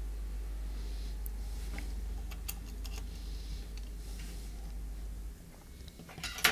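Faint clicks and taps of small phone parts and tools being handled while an iPhone 11 is reassembled, with a sharper cluster of clicks near the end. A low steady hum underneath stops about five seconds in.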